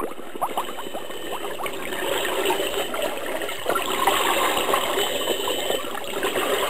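A diver's exhaled air bubbles bubbling underwater, heard through the camera's underwater housing: a few quick rising bubble chirps at first, then a denser crackling, rushing bubbling from about two seconds in.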